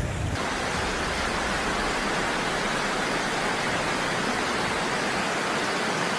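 Steady, loud rush of water noise, an even hiss without pitch or rhythm.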